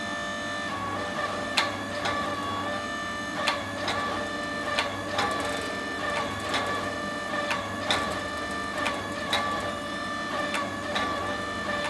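Hydraulic forging press running, its pump giving a steady whine whose pitch drops slightly about a second in, as it presses a glowing rebar blade between its dies. Sharp ticks sound irregularly on top, about one every half second to a second.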